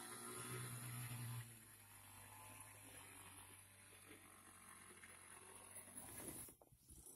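Near silence: a faint steady low hum, a little louder for the first second and a half, then fading.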